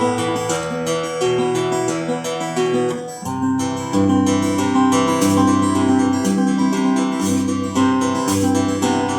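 Gretsch G3500 Rancher flat-top acoustic guitar with bronze strings, played in ringing chords. After a brief dip about three seconds in, fuller, louder low chords follow.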